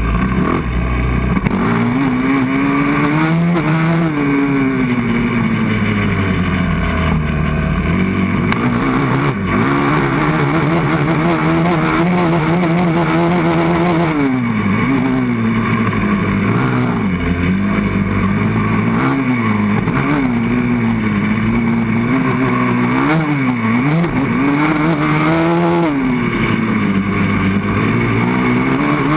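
A 450 sport quad's single-cylinder four-stroke engine revving hard as it is ridden, its pitch rising and falling over and over with throttle and gear changes. The revs drop sharply about halfway through and again a little later before climbing back up.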